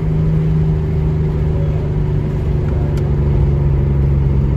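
Nissan 350Z's VQ35DE V6, breathing through a JWT Pop Charger short ram intake, running at steady, light-load cruising revs with an even engine drone that eases slightly and drops a little at the end.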